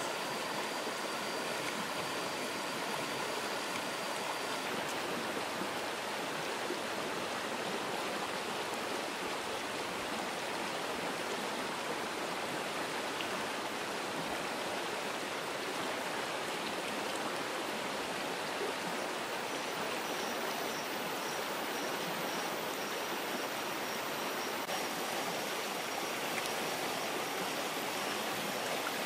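Stream water rushing steadily over rocks, a constant even wash of noise.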